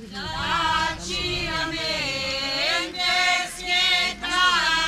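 A group of voices, mostly women's, singing a devotional hymn to Sant'Anna in long held notes, the phrases broken by short pauses.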